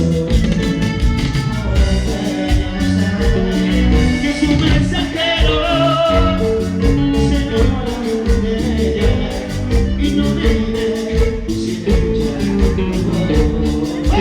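Latin American dance music from a live band, with a steady beat and a wavering melodic lead line.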